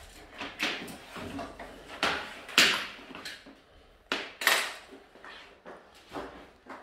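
A run of irregular knocks and scraping noises, uneven in spacing, loudest a little before the middle and again around two thirds through.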